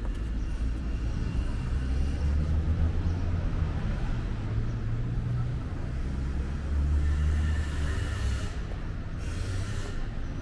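City street traffic: car engines running and passing in a steady low rumble that swells and eases, with a brief hiss near the end.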